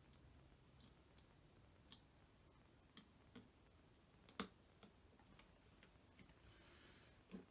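Near silence broken by a few scattered light clicks and taps from hands handling small plastic connectors and wiring, the loudest about four and a half seconds in.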